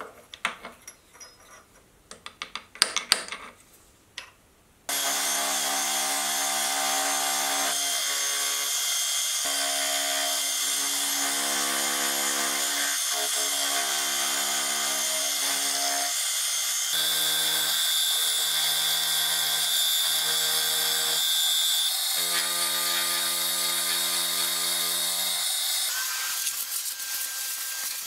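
Light taps and clicks as the part and aluminium angle block are seated in the mill vise. About five seconds in, the Sieg X2.7L mill starts cutting into the angled face of the steel part with an end mill and drill: a loud, steady cutting noise with several held tones that shift in pitch every few seconds.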